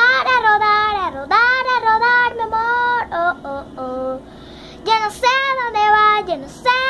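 A young girl singing alone, in held, melodic phrases with a short break a little past the middle.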